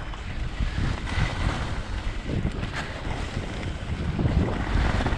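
Wind buffeting the camera's microphone in a low, uneven rumble while skis slide and scrape across chopped-up packed snow, a steady rough hiss.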